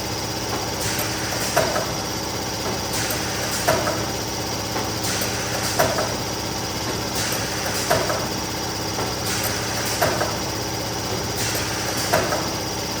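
Neoram 540 hot laminating machine running with a steady motor hum, and a sharp knock about every two seconds as sheets go through it one after another.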